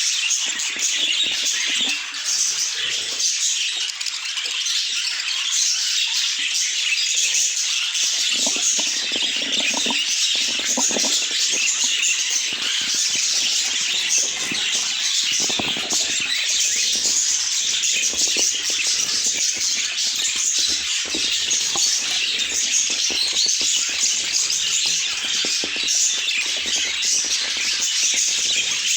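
Budgerigars chattering and chirping non-stop, a dense stream of rapid warbling chirps and squawks.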